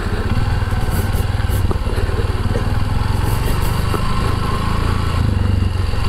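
Motorcycle engine running steadily, a dense low rumble that does not let up.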